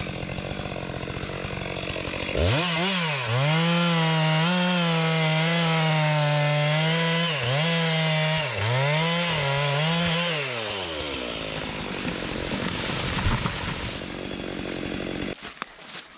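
Two-stroke chainsaw running at full throttle while cutting timber, its pitch dipping sharply several times under load and recovering. It drops to a rougher, quieter running sound and then stops suddenly about fifteen seconds in.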